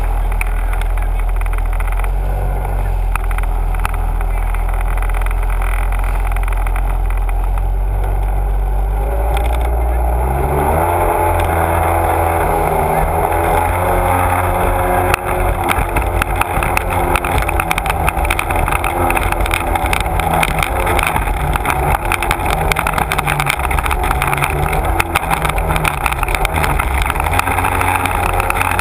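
Sea-Doo personal watercraft engine running under way, its pitch rising as the throttle opens about ten seconds in. From then on rushing water and spray slap against the hull as it speeds up.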